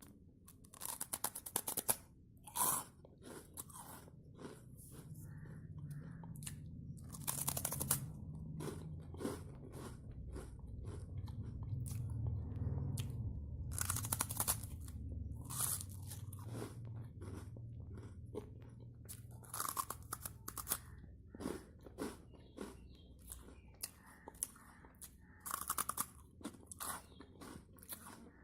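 Hard pieces of baked clay and brick being bitten and chewed: sharp, loud crunches come every few seconds, with gritty chewing between them.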